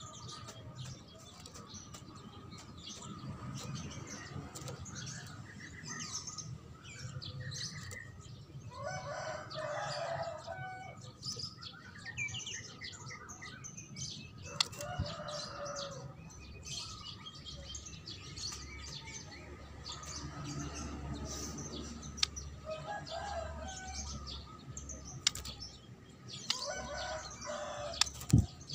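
White-rumped shama (murai batu) singing in quick high chirps and whistled phrases, with roosters crowing four times behind it and a few sharp taps.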